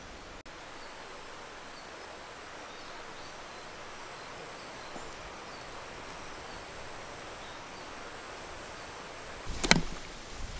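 Steady outdoor background hiss, broken near the end by a brief cluster of sharp knocks or clatter.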